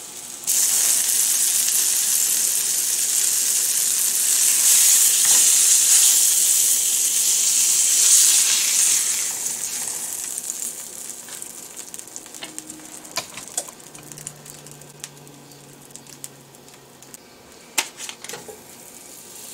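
Flour-dredged steak frying in oil in a nonstick skillet: a loud, steady sizzle that fades after about nine seconds to a softer sizzle of the pan drippings, with a few clicks of a fork against the pan.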